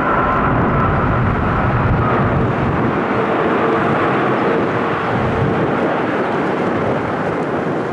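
Jet airliner passing close by: a loud, steady engine rush with a high whine that fades after about two seconds, then begins to die away near the end.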